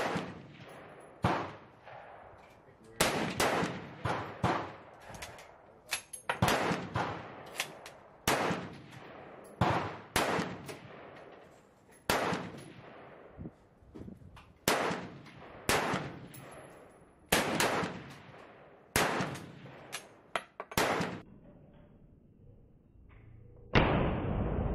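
Krag–Jørgensen bolt-action rifle firing a long string of shots, sharp cracks one to two seconds apart. Several are followed a fraction of a second later by the clang of a bullet hitting a steel gong.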